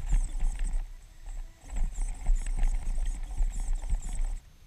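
Big paddle-style tyres of an electric RC mud truck churning in shallow water and mud, with irregular splashing and slapping over a deep rumble. It stops suddenly a little before the end.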